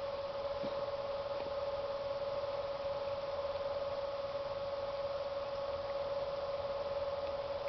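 A steady hum holding one even pitch, with a couple of faint ticks about a second in.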